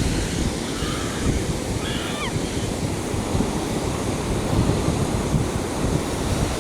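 Ocean surf washing on the beach, with wind buffeting the microphone in a steady low rumble.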